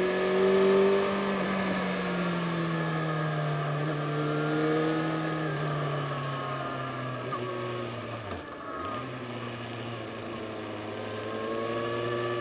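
Yamaha FZ6 Fazer S2's inline-four engine running under way, its note sinking slowly in pitch, then dipping sharply for a moment about eight seconds in before picking up again, with a steady rush of wind and road noise underneath.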